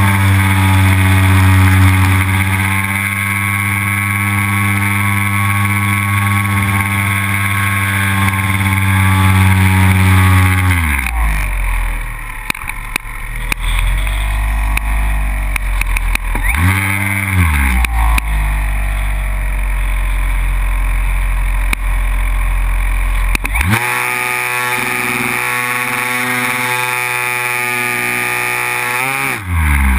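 MX2 model airplane's engine and propeller heard from the onboard camera: steady at high throttle, pulled back about 11 s in, a brief blip of throttle around 17 s, opened up again about 24 s in, and throttled down just before the end.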